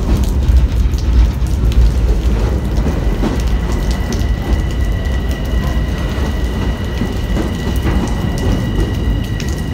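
Freight train cars rolling past close by: a steady low rumble of steel wheels on rail with scattered clicks and rattles. From about three and a half seconds in, a thin steady high-pitched squeal runs along with it.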